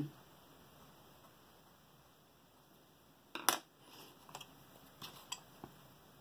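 Wooden coloured pencils clicking against one another as one pencil is put down and another is picked out of a loose pile: one sharp clack about three and a half seconds in, then a few lighter clicks.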